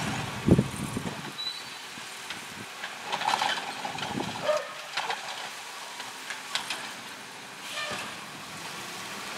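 Heil Python automated side-loader arm on a Peterbilt 320 garbage truck picking up a trash cart: the hydraulic arm grabs, lifts, dumps and sets down the cart with a series of clanks and knocks, the loudest a deep thud about half a second in.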